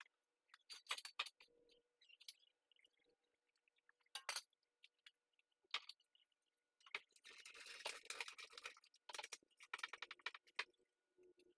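Faint, scattered metal clinks and knocks of a steel jack stand being set under the front of the car, with a busier run of clinks about seven to eight seconds in.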